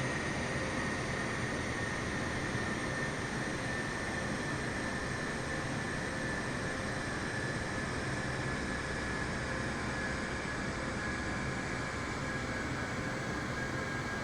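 Jet airliner engines running steadily, a broad rush of noise with a high whine that drifts slowly down in pitch.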